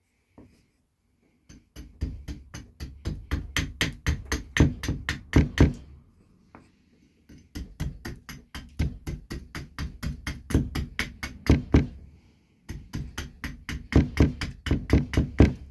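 Carving axe making quick, light chopping strokes into a green maple spoon blank resting on a wooden stump, about five cuts a second. The strokes come in three runs separated by short pauses.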